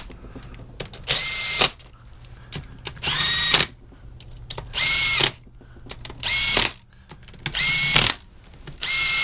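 A handheld electric power driver spins in engine case bolts in six short runs, each about half a second long and coming roughly every second and a half. Its motor whine rises briefly as each run starts. The bolts are only being run in snug, not torqued.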